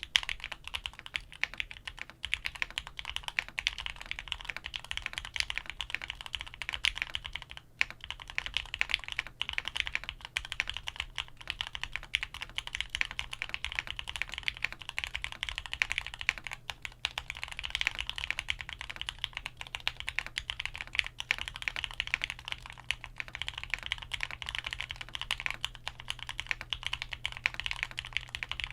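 Fast, continuous typing on a Qwertykeys QK100 mechanical keyboard with stock Gateron Oil King switches in a foam-dampened, soft gasket-mounted carbon-fibre plate build, with a few brief pauses. A steady low hum sits underneath.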